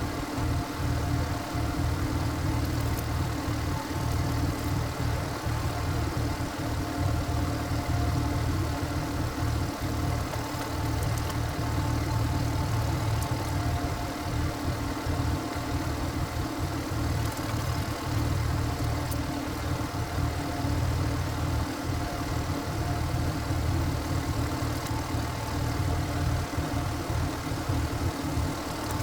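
Walk-behind power tiller's single-cylinder diesel engine running steadily, with a faint steady whine above the engine note.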